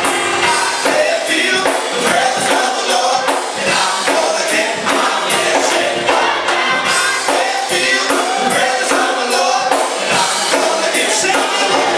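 Gospel worship music: voices singing together over a steady percussion beat of about two strikes a second.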